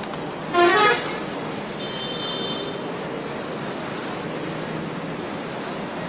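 Steady street noise with one short, loud vehicle horn toot about half a second in, and fainter high tones around two seconds in.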